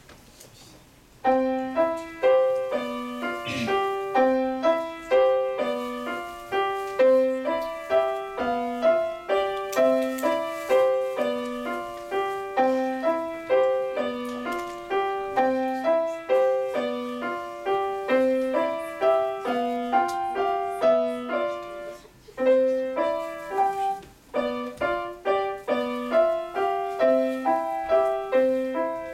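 Grand piano played solo: quick, repeating figures of single notes begin about a second in and run on steadily, with a brief break about three-quarters of the way through before the playing resumes.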